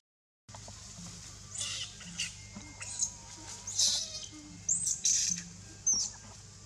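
Infant long-tailed macaque giving a string of about seven short, high-pitched squeals, some bending up or down in pitch: a baby calling for its mother.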